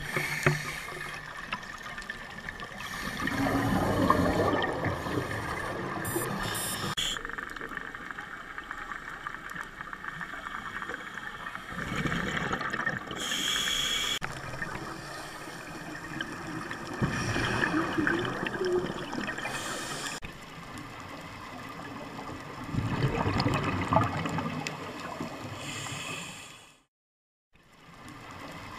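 Underwater recording of scuba divers breathing through their regulators: a rush of exhaled bubbles every few seconds over a steady hiss. The sound drops out briefly near the end.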